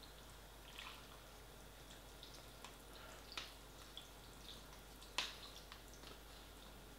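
Faint, scattered wet clicks and scrapes of a metal fork stirring noodles in a paper pot, one sharper click a little after five seconds in.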